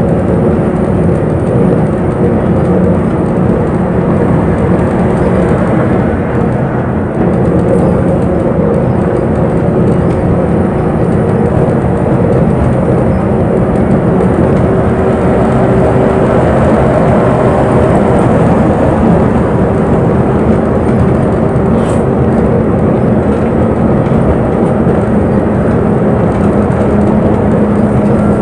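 A bus running, heard from inside the cabin: a loud, steady drone of engine and road noise with a low engine hum that shifts slightly in pitch, and a single faint click near the end.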